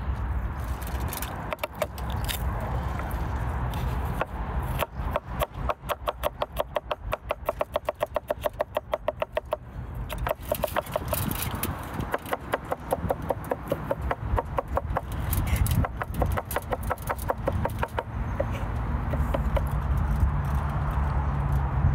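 Chef's knife mincing garlic on a wooden cutting board: a fast, even run of blade knocks for about five seconds, then slower, irregular chopping.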